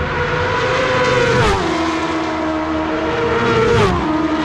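Two superbikes passing at racing speed about two and a half seconds apart, each engine's pitch dropping sharply as it goes by.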